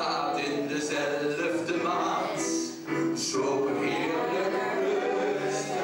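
A man singing a Dutch cabaret song into a microphone with piano accompaniment, holding long notes, with a short pause about three seconds in.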